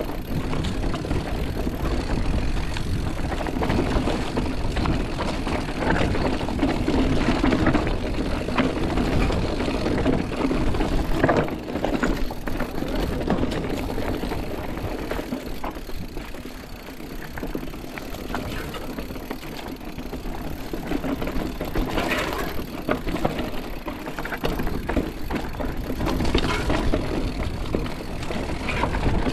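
Mountain bike riding over rough trail: a steady rush of wind and tyre noise, with frame and drivetrain rattling and scattered knocks from the ground.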